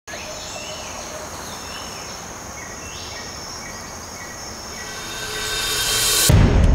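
Tropical forest ambience: a steady hiss with high insect and bird calls. Near the end it swells in a rising whoosh that breaks into music with a heavy bass beat.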